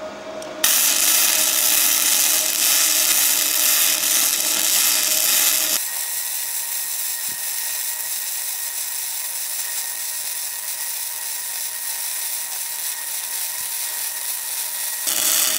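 Flux-core MIG arc from a Bestarc multiprocess welder, sizzling steadily while a bead is laid. It starts about half a second in and stops shortly before the end; about six seconds in it drops in level and turns thinner.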